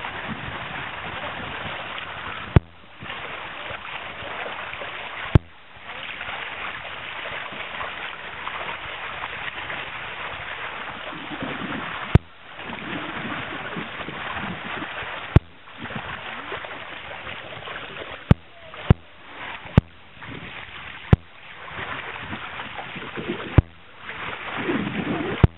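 Water rushing and splashing along the hull of a Richard Woods Surfsong sailing catamaran under way, a steady rush. About nine sharp clicks break in, each followed by a brief dip in the sound.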